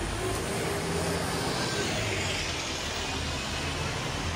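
A passing vehicle, its noise swelling about halfway through and easing off again, over a steady low rumble of traffic.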